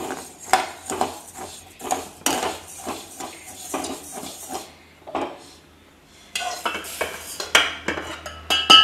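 Metal spoon scraping and stirring dry raw rice grains as they roast in a metal kadai, about two strokes a second. Near the end come sharper clinks and one loud ringing knock of metal on metal as the roasted rice is scraped out of the pan into a steel vessel.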